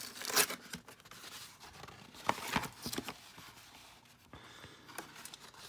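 Cardboard toy packaging being handled and the cardboard tray slid out of its box: scraping and rustling with a few light knocks, loudest about half a second in.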